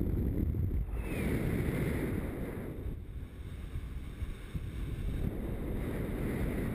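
Wind buffeting the microphone of a harness-mounted camera on a paraglider in flight, a gusty low rumble that rises and falls.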